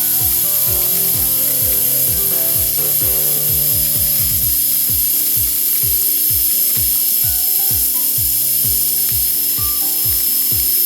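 Background music: a steady electronic kick-drum beat under held synth notes that change in steps.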